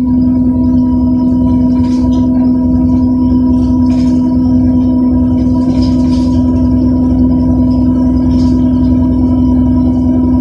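Solaris Urbino 10 city bus driving, heard inside the passenger cabin: a loud, steady droning tone that holds one pitch over a low running rumble, with light rattles every couple of seconds.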